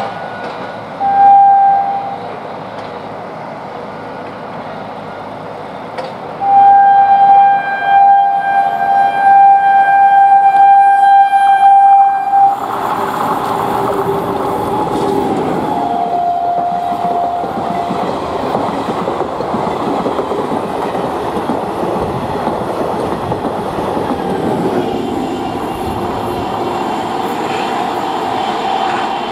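An Indian Railways ICF DEMU (diesel-electric multiple unit) train sounds its horn: one short blast, then a long blast lasting about six seconds. The train then runs past with a loud, steady noise of its engine and wheels on the track.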